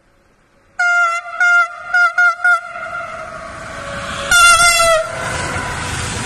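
Siemens Vectron electric locomotive sounding its horn: five short toots in quick succession, then about two seconds later one longer blast that drops in pitch as the locomotive passes close by. Under and after it, the rumble and rush of the freight train going past grows and holds.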